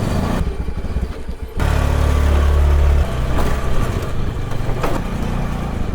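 A motor vehicle's engine running, a steady low rumble that grows louder for about a second and a half midway.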